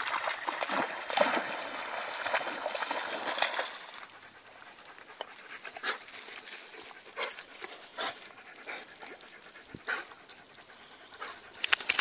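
A dog panting close by, with scattered clicks and scuffs of paws on a gravelly shore. A louder rushing noise fills the first few seconds.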